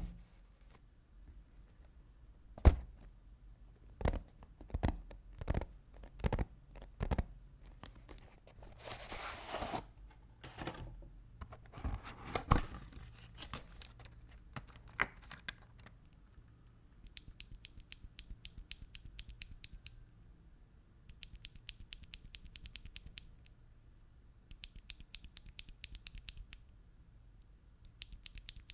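Akko Starfish linear mechanical keyboard switches being handled and pressed: scattered single clicks and a brief scrape, then four runs of quick key strikes in the second half.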